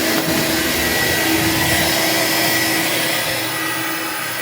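Electrolux Discovery 3 upright vacuum cleaner running steadily with its brush roll switched off: the suction motor gives a steady whine over rushing air.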